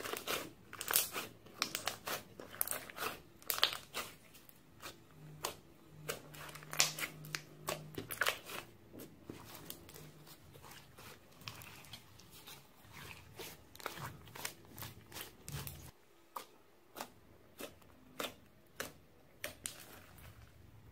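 Glossy slime being squeezed, stretched and pressed by hand in a glass bowl, giving a run of wet, sticky clicks and pops. The clicks come thick and fast at first, then thin out into single pops about every half second near the end as air pockets in the slime burst.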